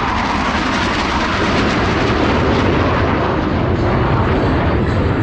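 F/A-18 Super Hornet jet engines, loud and steady in flight.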